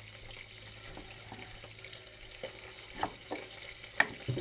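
Fish sizzling steadily in hot oil in a frying pan, with a few light knocks in the second half.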